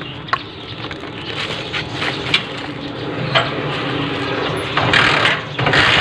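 Honda TMX 125 Alpha's single-cylinder four-stroke engine being started without its key, with the kill-switch wire disconnected so it will run: a few clicks and knocks, then the engine catching and running, with two louder bursts near the end.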